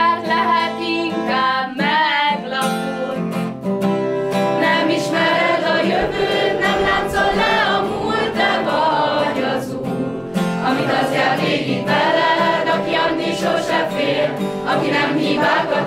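A mixed choir of young voices singing a song in Hungarian, accompanied by a strummed acoustic guitar.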